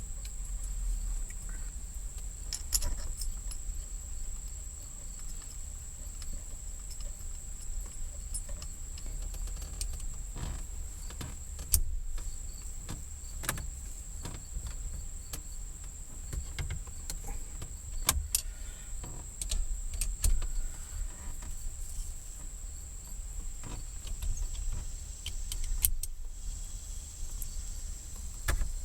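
Scattered metallic clicks, taps and clinks of hand tools and bolts being worked, a few seconds apart, as the shifter housing is bolted down over its gasket.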